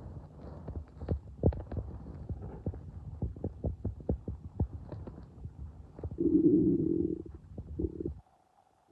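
Human stomach gurgling: a rapid run of short pops and clicks over a low rumble, with a louder drawn-out growl about six seconds in. The sound cuts off abruptly near the end.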